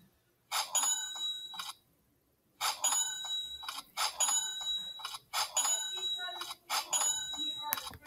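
A bright, bell-like ding sound effect, repeated about six times at roughly one-and-a-half-second intervals. Each ding rings out and fades over about a second. It marks each new sale added to the commission chart.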